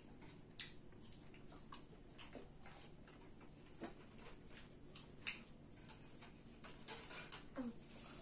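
Faint eating sounds: french fries picked from a metal tray and chewed, heard as soft mouth smacks and a scattering of sharp little clicks and ticks, a few more of them near the end.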